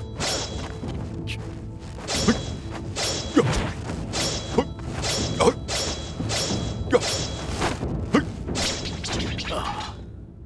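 Fight sound effects: a rapid string of sword swishes and blows, about two a second, over a background music score. They fade out near the end.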